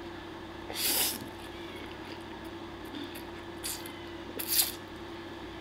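A person slurping spaghetti off a fork: three quick slurps, about a second in, a weaker one past the middle and the loudest shortly after.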